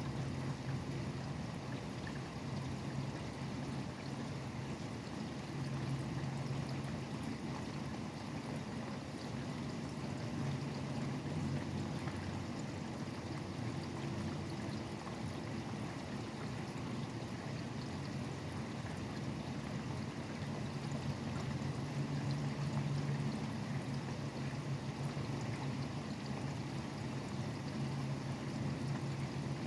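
Steady rain falling, an even hiss with no breaks. Underneath it, the low hum of highway traffic swells and fades as vehicles pass, loudest about 6, 11 and 22 seconds in.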